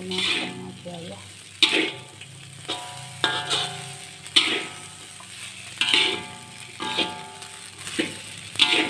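Vegetable fried rice sizzling in a metal wok as a metal spatula scrapes and turns it, with a clank and short metallic ring from the spatula hitting the wok about every one to two seconds.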